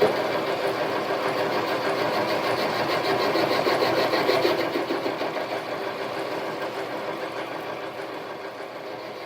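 A small shop machine tool running steadily with a fast, even mechanical rhythm, fading down over the last few seconds.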